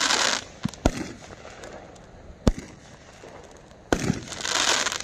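A Brothers 36-shot consumer fireworks cake firing shot after shot. There are three sharp bangs, about a second and a half apart, and hissing, crackling bursts at the start and again near the end as the shots break.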